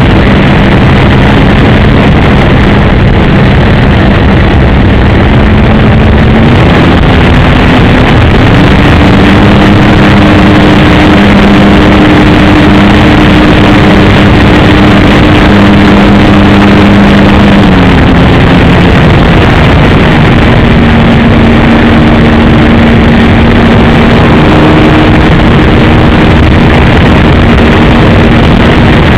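Engine of an RC Piper J-3 Cub model airplane running, very loud and distorted, its pitch stepping up and down a few times as the throttle is changed.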